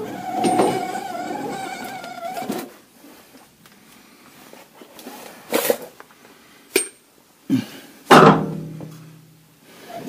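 Tools and metal parts knocking and clanking during the fitting of a rear air shock: a few sharp knocks, then a louder clank with a brief ring about eight seconds in. It opens with a steady whine that stops after about two and a half seconds.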